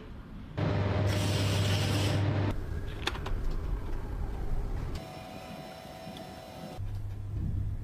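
Workshop restoration sounds in short cut-together clips: abrasive rubbing and sanding, some with a steady low electric-tool hum, changing abruptly several times, with a sharp click about three seconds in.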